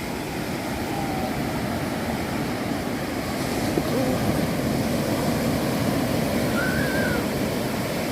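Sea surf breaking and washing onto a sandy beach: a steady rush of waves.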